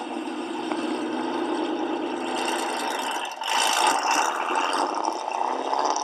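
2013 Shelby GT500's supercharged 5.8-litre V8, fitted with American Racing headers, an off-road H-pipe and Ford Racing mufflers, running loud through its open exhaust as the car pulls away. A louder surge of acceleration comes about three and a half seconds in, and the engine pitch rises near the end.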